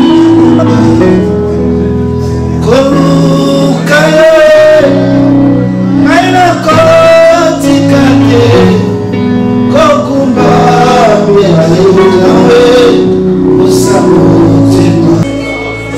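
A male vocalist singing a slow worship song live over keyboard and guitar accompaniment, with long held notes that slide in pitch.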